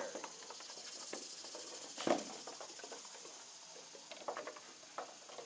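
Scattered small clicks and scratchy rustles, with one louder knock about two seconds in and a run of ticks near the end, over a faint steady high hiss.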